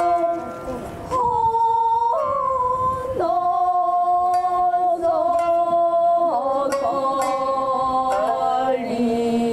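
Kabuki accompaniment music: a chanter's voice holding long, slightly wavering notes, stepping to a new pitch every second or two, with a few faint sharp plucks.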